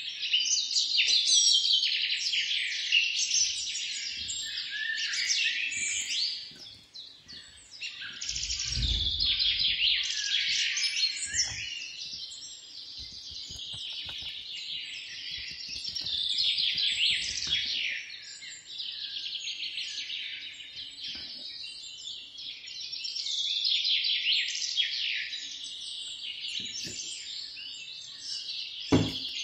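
Birds chirping and singing without a break, many quick high calls overlapping. Underneath come faint scrapes of batter being mixed in a glass bowl, and a single knock near the end.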